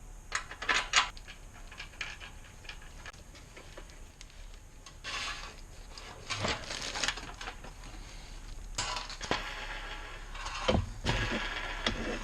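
Wrench and small metal parts clinking and scraping in irregular bursts as the 17 mm nuts on a dryer's drum-wheel studs are worked.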